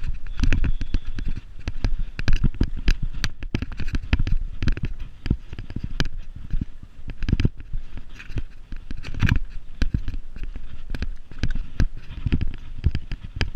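Mountain bike rattling and knocking as it runs down a bumpy grass track, with many quick, irregular knocks and clatters over a low rumble.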